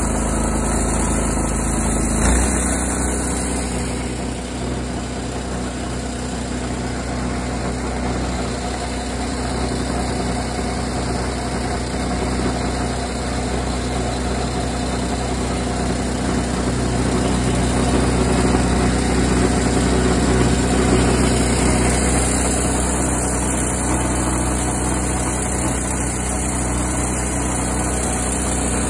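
Small gasoline engine of a homemade winch running steadily at idle. There is a brief knock about two seconds in, after which the engine note settles a little lower.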